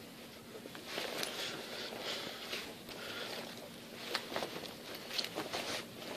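Soft rustling of uniform fabric with several light clicks and knocks as an Army ACU jacket is put on, over a faint steady hum.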